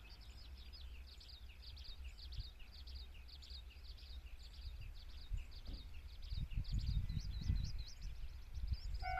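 Outdoor rural ambience: rapid, repeated high chirps of small birds, with a low, uneven rumble that grows louder over the last three seconds.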